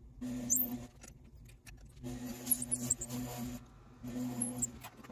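Unique Products cue lathe running as a drill bit bores the joint-pin hole in a hickory cue core: the motor hums steadily, with three louder stretches of drilling, the longest about a second and a half. The sound stays even, with no vibration or wobble, which the builder takes as the sign of a straight hole.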